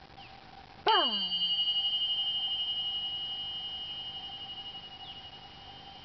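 Tingsha, a pair of small Tibetan cymbals, struck together once about a second in, giving a bright, high, bell-like ring with a slow wavering beat that fades over several seconds.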